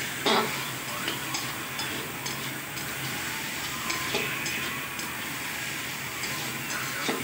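Tomatoes and spices sizzling in oil in a large metal kadai while a spatula stirs them, scraping and tapping against the pan in scattered clicks, with one louder clack about a third of a second in.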